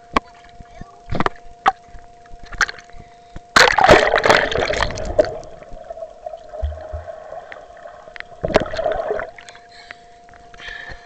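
Lake water splashing and sloshing against a waterproof camera held at the surface by a swimmer: a few sharp splashes, then a loud rush of splashing about three and a half seconds in as the camera dips under, muffled underwater gurgling, and another splash near nine seconds as it comes back up. A faint steady tone runs underneath.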